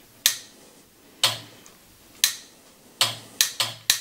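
Steel switching armature of a rebuilt dynastarter starter relay clicking shut against its contacts and springing back, worked by hand during a continuity check. It clicks about once a second, then four quicker clicks near the end.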